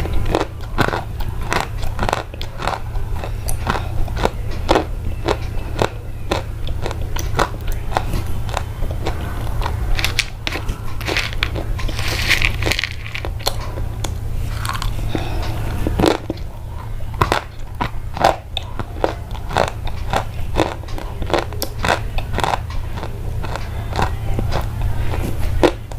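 Close-up crunchy biting and chewing: dense, irregular crisp crunches several times a second, over a steady low hum.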